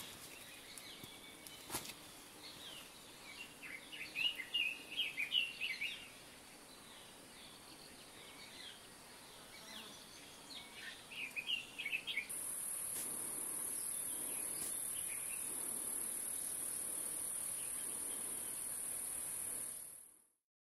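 Birds chirping in short scattered bursts over a steady high-pitched insect drone. The drone jumps louder about twelve seconds in, then fades out near the end.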